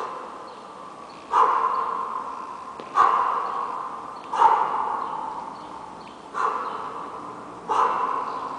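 A kettlebell lifter's sharp, forceful exhalations or grunts, one about every one and a half seconds, each starting suddenly and fading slowly, in time with the effort of the one-arm kettlebell jerk.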